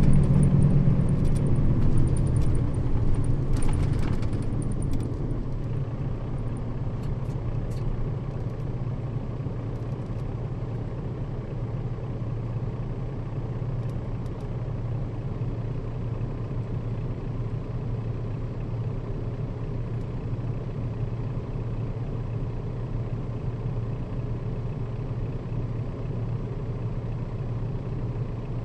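Nissan Diesel KL-RA552RBN route bus heard from inside its cabin, the diesel engine running at a steady low hum with road rumble. The sound eases a little over the first few seconds, then holds steady, with a few faint clicks near the start.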